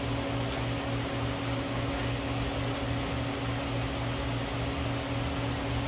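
A machine running with a steady hum and a low throb that pulses evenly several times a second.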